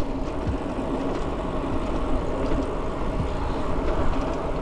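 Trek Marlin 7 mountain bike rolling fast on asphalt: wind rushing over the microphone and the knobby tyres droning on the road, a steady low rumble.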